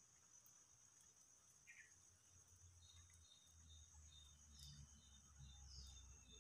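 Faint, steady high-pitched trilling of crickets or similar insects, with a series of short chirps repeating about twice a second from about halfway in. A low rumble rises underneath in the second half.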